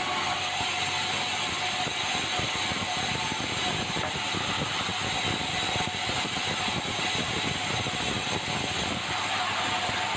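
Sawmill running steadily, its saw cutting red meranti timber, with a faint steady tone under an even machine noise.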